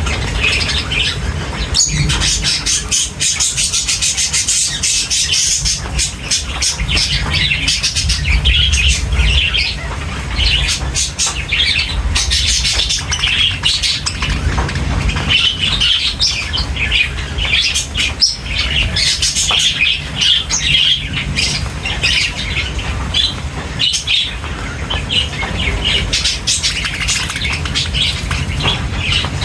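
Several budgerigars chattering, with rapid chirps and squawks that run on without a break, over a steady low hum.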